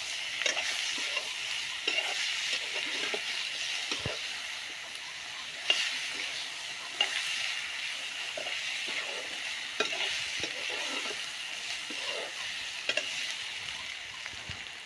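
Vegetables sizzling steadily in hot oil in a black kadai, stirred with a spatula that knocks and scrapes against the pan every second or two.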